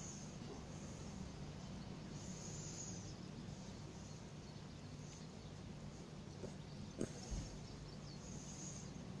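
Quiet outdoor background: a steady low rumble with a faint high buzz that swells twice, and a single click about seven seconds in.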